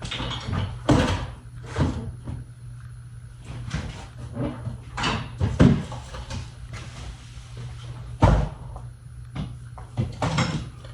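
Rummaging through storage for a tape measure: irregular knocks, clatter and scraping of objects being moved about, with one heavier thud about eight seconds in.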